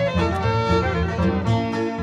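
Bluegrass band playing an instrumental break with the fiddle taking the lead, over guitar, bass and picked string rhythm.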